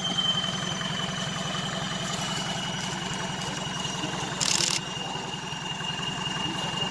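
Off-road 4x4 engine idling steadily with an even low pulse. A thin high whine sinks slowly in pitch throughout, and a brief hiss comes about two-thirds of the way in.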